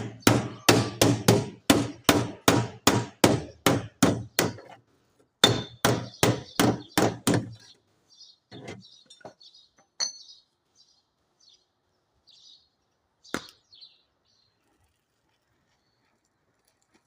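Body hammer striking the sheet metal of a Honda car door to work out a dent: quick, even blows about three a second, a short pause, a second run of blows, then a few light clinks and one more sharp knock.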